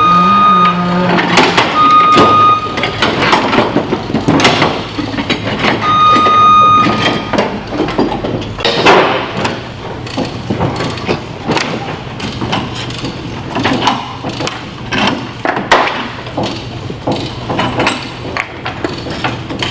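A machine's warning alarm beeps three times, each beep about a second long, over an engine running steadily. Irregular knocks, clunks and creaks of heavy wood and gear run throughout as the steamed white oak frame is worked up into the hull.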